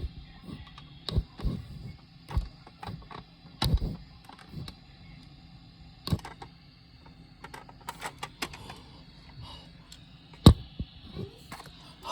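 Scattered clicks and knocks of Nerf toy blasters being handled, primed and fired, at irregular intervals with one sharp knock about ten and a half seconds in.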